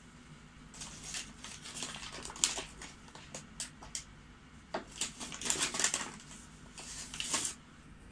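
Shijimi clams purging sand in a tray of water: irregular little wet squirts and clicks as they spurt water, coming in clusters with a short lull about halfway through and stopping shortly before the end.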